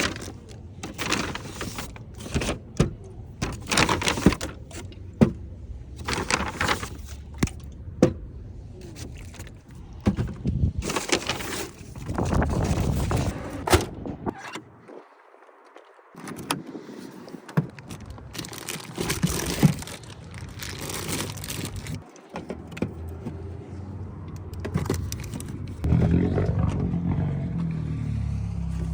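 A run of knocks, clicks and scrapes from things being handled, with a break about halfway through. About 26 seconds in, a vehicle engine starts running steadily.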